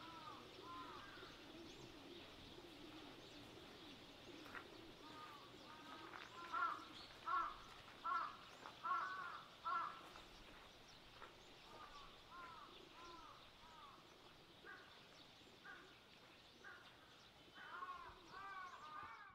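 Birds calling outdoors over a faint background hiss: short arched calls come singly, in a run of about half a dozen midway through, and in another cluster near the end.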